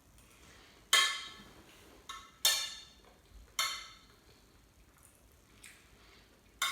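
Cutlery clinking against a plate while eating: a handful of sharp, briefly ringing clinks about a second apart, some louder than others.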